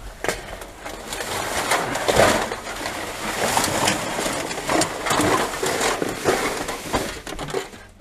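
Plastic rubbish bags and packaging rustling and crinkling as gloved hands rummage through bin rubbish, with scattered crackles and clicks.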